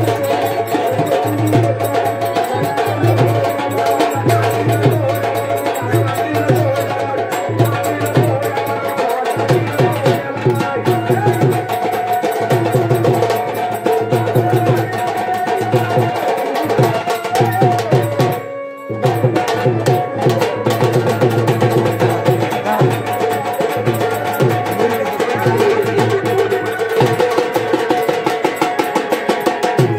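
Gondhal devotional music played live through a loudspeaker: a fast, steady hand-drum and percussion beat with singing over it. It cuts out briefly about two-thirds of the way through, then carries on.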